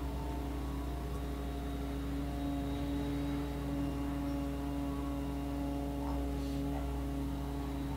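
A steady droning hum made of several held tones over a low rumble, unchanging throughout.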